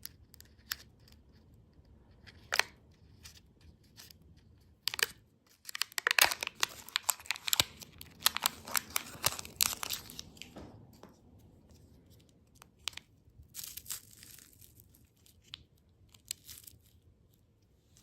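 Candy packaging being torn open and crinkled: scattered sharp crackles, thickening into a dense stretch of tearing and crinkling about six to ten seconds in, with shorter bursts later.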